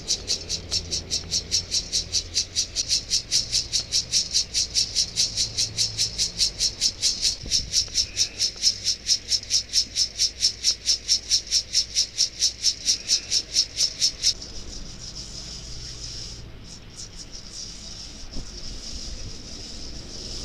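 Roasted coffee beans rattling in a metal colander, shaken in a steady rhythm of about four shakes a second to cool them in front of a fan. The shaking stops suddenly about 14 seconds in, leaving a steady faint hiss.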